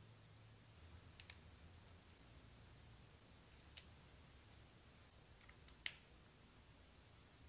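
Plastic building bricks clicking as they are pressed and fitted together by hand: a few sharp, isolated clicks, the loudest about a second in and again about six seconds in.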